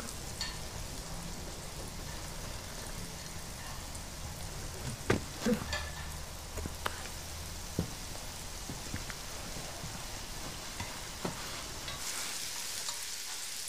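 A low steady hum with a few faint knocks and clicks, then, about twelve seconds in, the hiss of food frying in a pan on a gas stove.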